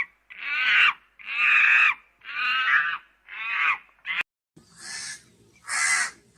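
Monkeys chattering: a run of about five high, pitched calls that rise and fall, each well under a second. After a short break about four seconds in, three harsh crow caws.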